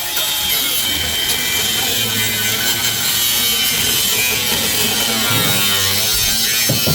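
A power tool working steadily on the car's rusted sheet-steel floor panel: a continuous abrasive cutting or grinding noise with a faint high whine.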